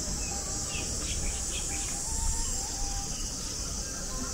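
Outdoor insects making a steady, high-pitched drone, with a few short bird chirps in the first two seconds.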